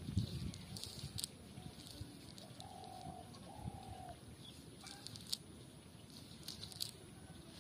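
A bird calls twice, two short even-pitched calls about three and four seconds in. Thin clicks and light rustling come from a cast net's mesh and weights being handled, with a low thump at the start.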